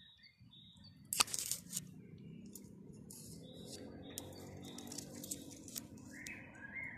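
Faint chirps of songbirds in the background over low rustling handling noise, with one sharp click about a second in and a run of stepped chirps near the end.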